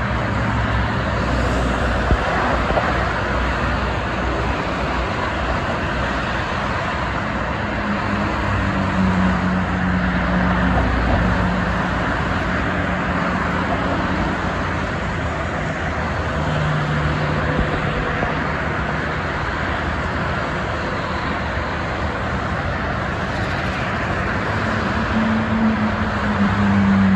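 Steady traffic noise of a multi-lane expressway: tyre noise and engine hum of passing cars and trucks, swelling briefly as louder vehicles pass about a third of the way in and near the end.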